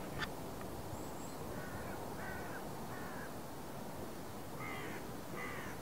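A crow cawing: three short hoarse caws, then after a pause two more, over a steady outdoor background hiss.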